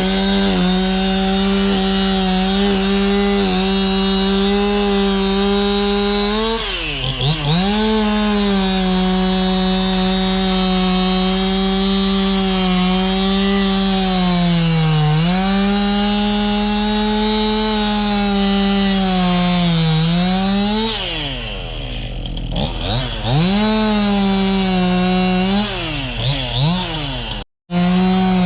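Two-stroke chainsaw running at high throttle, its steady high pitch dipping briefly several times and recovering, consistent with cutting into the fallen tree. The sound cuts out for an instant near the end.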